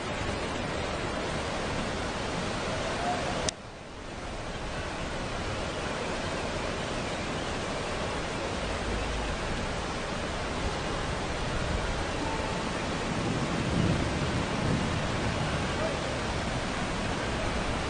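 Torrent of floodwater rushing through a street, a steady rushing noise. About three and a half seconds in there is a click and a brief dip in level, then the rushing resumes.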